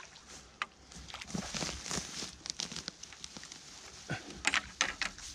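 Dry bankside grass and reeds rustling and crackling, with scattered sharp clicks and knocks, as a large carp is handled by hand at the water's edge; the loudest clicks come in a cluster about four and a half seconds in.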